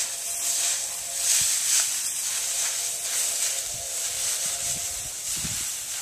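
Dry rice straw rustling and crunching under feet as harvested rice stalks are trodden on a woven tray to thresh out the grain, in repeated irregular swishes, with a few dull low thuds near the end.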